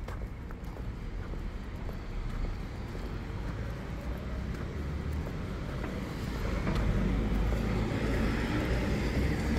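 Road traffic on a main road: passing vehicles' tyres and engines as a steady rush with a low rumble, growing louder over the last few seconds as a vehicle draws near.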